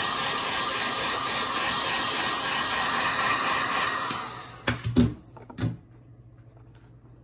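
Genesis GHG1500A electric heat gun blowing steadily, then switched off about four seconds in, followed by a few sharp knocks.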